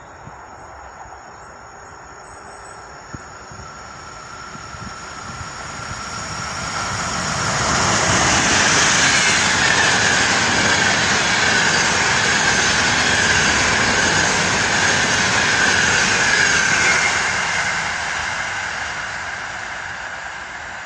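Passenger express train hauled by an EU44 Husarz electric locomotive passing at speed: the rolling noise of wheels on rails grows from about four seconds in, stays loud for about ten seconds as the coaches go by, then fades as the train moves away.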